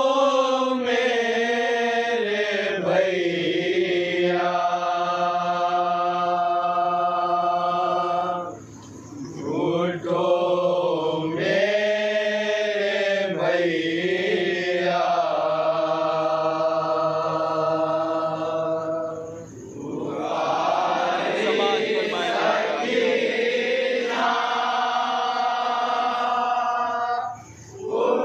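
A man chanting a noha, a Shia mourning lament, in long drawn-out held notes. The chant breaks off briefly about every ten seconds.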